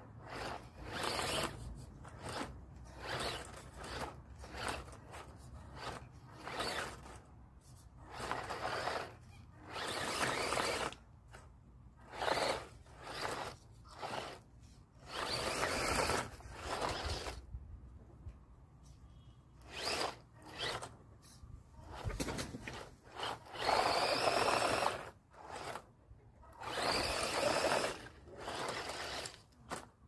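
Small electric RC monster truck's motor whining in short bursts of throttle, about one a second, with tyres spinning and scrabbling in loose dirt as it tries to climb out of a steep hole. A few longer bursts rise in pitch as the motor revs up.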